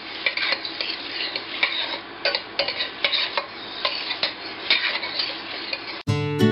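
Metal spoon stirring short-grain rice frying in margarine and oil in a stainless steel pot: a continuous scraping rustle with irregular clinks of the spoon against the pot, as the rice is toasted almost dry before the water goes in. About six seconds in it cuts off suddenly and acoustic guitar music starts.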